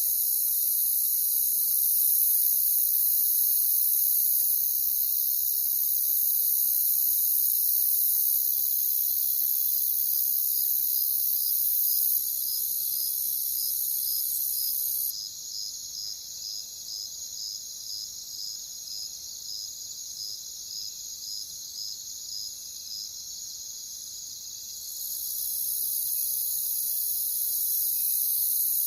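A chorus of crickets trilling steadily, high-pitched, with one cricket's chirps standing out about twice a second through the middle. The highest part of the chorus drops out for about ten seconds midway, then returns.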